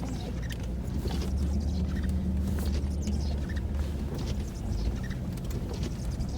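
Vehicle engine's steady low drone while driving through deep snow, heard from inside the cab, with scattered small crackles and creaks.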